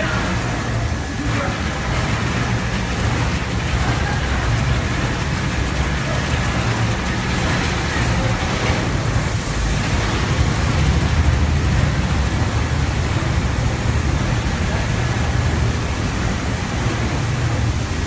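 Goldfist CRG-02 automatic carpet washing machine running: a steady mechanical rumble from its motors and brushes, mixed with the hiss of water spraying over a wet carpet.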